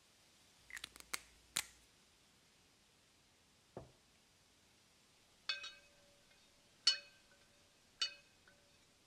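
Glassware clinking: a few light clicks and a soft knock, then three ringing clinks a little over a second apart, each leaving a short ring.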